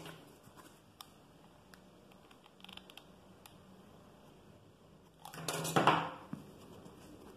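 Hands handling and pressing fabric onto a fabric-covered milk-carton box: quiet handling with a few faint clicks, then a brief louder rustle of fabric and card about five seconds in.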